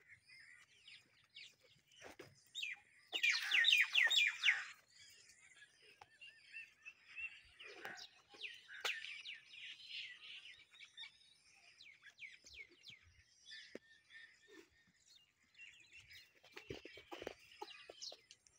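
Small birds chirping and calling, with a loud, rapid run of chirps about three seconds in that lasts over a second.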